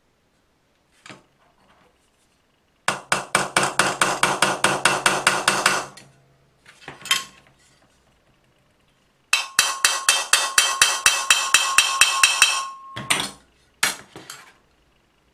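Bernina sewing machine running in two short bursts, its needle mechanism clattering about six times a second over a steady motor tone. There are a few single knocks between and after the bursts.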